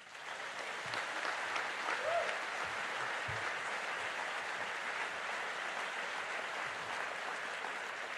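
Audience applauding steadily as a reader is welcomed onto the stage, the clapping fading out just after the end.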